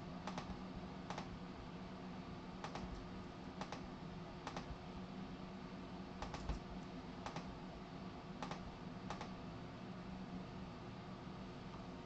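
Faint, scattered keypresses on a computer keyboard, about one a second at an uneven pace, over a steady low hum.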